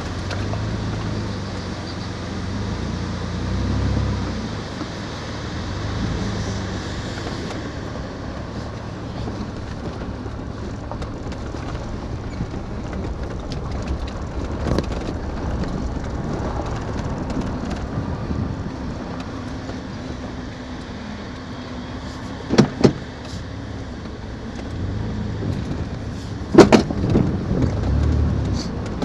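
A motor vehicle on the move: steady engine and road rumble. A few sharp knocks come near the end.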